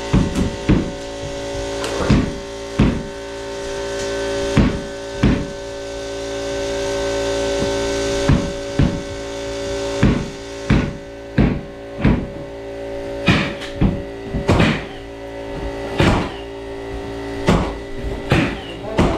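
Sharp knocks on wood at irregular intervals, roughly one a second, over a steady machine hum.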